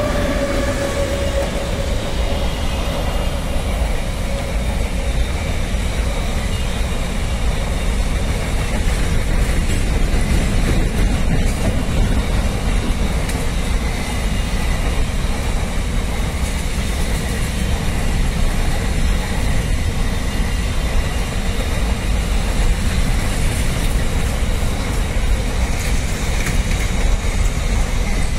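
Container freight train's wagons rolling past at speed: a steady rumble of wheels on rail with a rushing hiss. A tone from the departing electric locomotive fades out about a second in.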